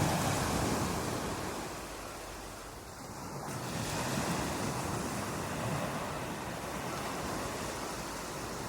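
Ocean surf breaking on a beach: a continuous wash of waves that swells, eases off for a couple of seconds, then builds again as the next wave comes in.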